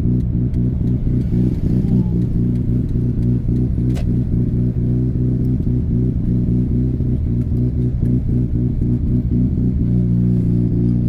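Mazda RX-8's twin-rotor Wankel engine running steadily at low road speed, with a single sharp click about four seconds in.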